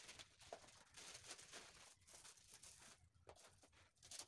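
Faint rustling and tearing of a plastic courier pouch being opened by hand, with a few crinkles as the wrapped box inside is pulled out.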